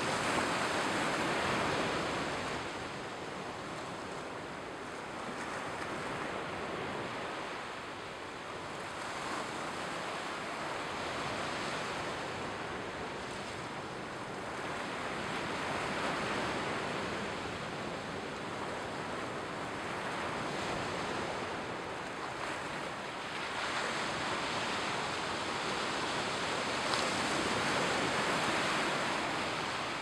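Mediterranean surf breaking and washing onto a sandy beach, a steady rush of water that swells and ebbs every several seconds, loudest near the start and near the end.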